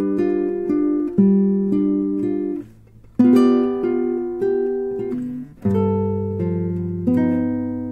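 Background music: an acoustic guitar strumming chords and picking single notes, each chord ringing out and fading before the next.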